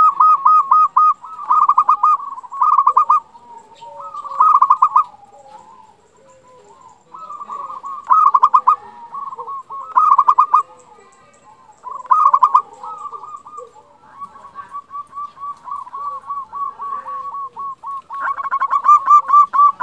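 Zebra dove (perkutut) cooing: short bursts of rapid staccato notes repeated every second or two, then from about two-thirds through a long unbroken run of notes that grows louder near the end.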